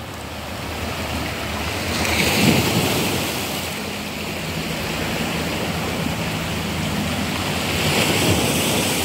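Sea surf breaking on the shore, a steady wash of water with two louder waves, one about two seconds in and another near the end.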